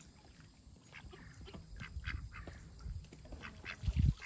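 Domestic ducks calling in a few short, separate calls. A low thump near the end is the loudest sound.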